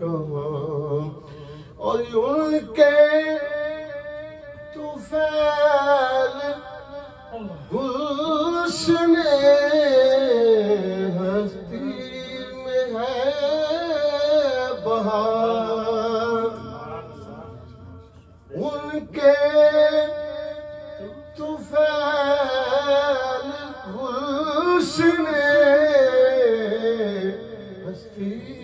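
A man reciting an Urdu naat, solo and without instruments: several long melodic phrases with wavering, ornamented held notes, broken by short pauses.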